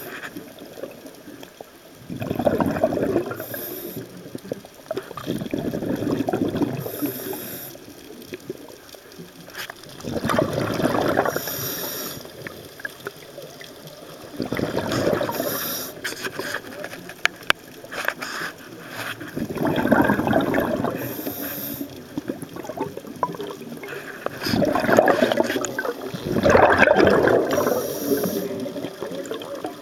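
A scuba diver breathing underwater through a regulator: a gurgling rush of exhaled bubbles about every four to five seconds, each paired with a short high hiss from the inhale.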